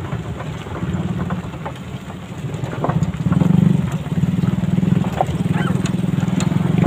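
Several small motorcycles running in a slow-moving group, a steady low engine rumble that swells about three seconds in.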